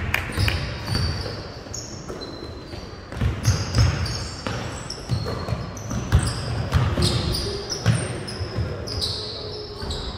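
Basketballs bouncing on a hardwood gym court in irregular thuds during play, with many short, high sneaker squeaks, all echoing in a large gym.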